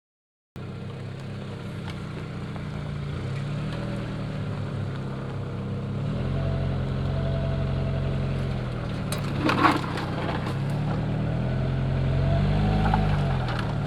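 Motor vehicle engine running, its pitch rising and falling as it speeds up and eases off, with a brief clatter about nine and a half seconds in.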